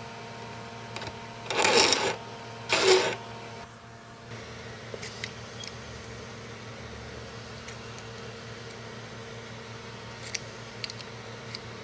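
Needle file rasping across the edge of a small metal hexagram pendant, two strokes about a second apart in the first few seconds. Faint small metallic clicks of jeweller's pliers follow.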